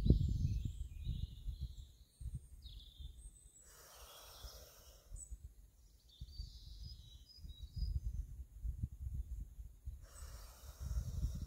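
Wind buffeting the microphone in irregular gusts, strongest at the start and picking up again in the second half, with birds chirping faintly in the background. A brief rush of noise comes about four seconds in.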